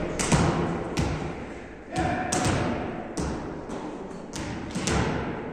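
Volleyballs being hit by hands and bouncing, about ten irregular sharp thuds in a few seconds, each echoing in a large gym hall.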